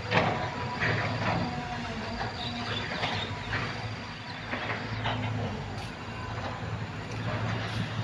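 A low engine hum, swelling and fading unevenly, with short rustling or brushing noises over it several times.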